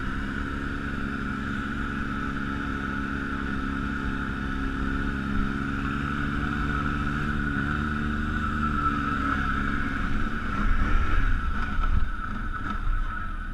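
ATV engine running steadily under way on the trail, with a constant high whine over the engine note. A little past two-thirds of the way through it gets louder and rougher, with low knocks and jolts.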